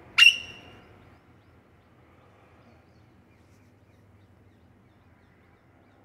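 Alexandrine parakeet giving one short, loud screech about a quarter of a second in.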